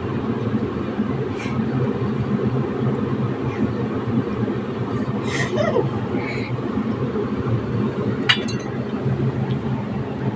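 A few light clinks of dishes at a meal, the sharpest about eight seconds in, over a steady low rumble of background noise.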